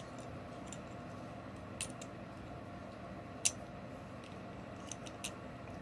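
A few light, sharp clicks of hard plastic action-figure parts, a shield and a small peg, being handled and fitted together, over a steady low hum; the sharpest click comes about three and a half seconds in.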